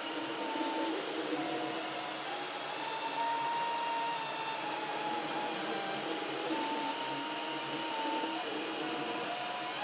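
3D printer's stepper motors whining in held tones that step between a few pitches, changing about every second as the print head lays down the skirt loops, over a steady hiss.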